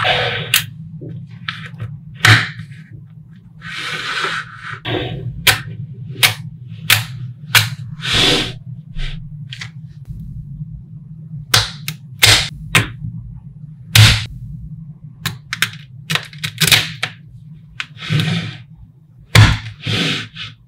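Small magnetic balls clicking and snapping together as rows are pressed into place on a block built from them: sharp single clicks at irregular intervals, with a few longer rattling clatters, over a steady low hum.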